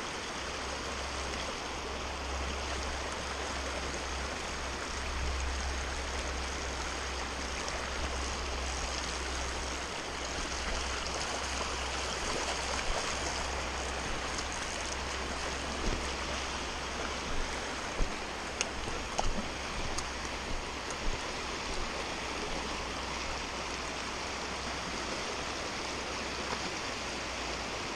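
Shallow creek water rushing steadily over rocks in a riffle, heard close up, with a steady low rumble beneath and a few short sharp knocks about halfway through.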